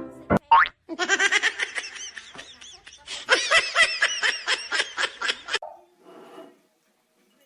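A burst of laughter, fast repeated ha-ha pulses that get louder about three seconds in and cut off abruptly near the end, preceded by a short rising whistle-like glide.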